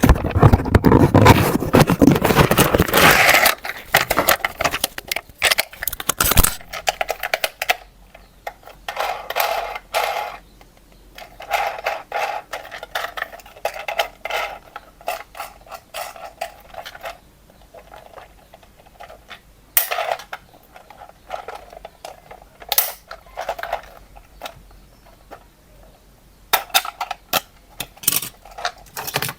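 Hands handling plastic toy parts and packaging: a few seconds of loud scraping and rustling at the start, then scattered clicks, knocks and short scrapes.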